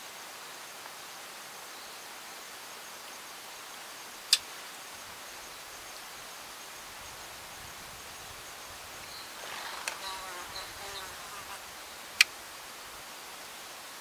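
An insect buzzing by for about two seconds, starting about nine and a half seconds in, over a steady faint hiss with a thin high insect trill. Two sharp clicks stand out, one about four seconds in and one about twelve seconds in, and they are the loudest sounds.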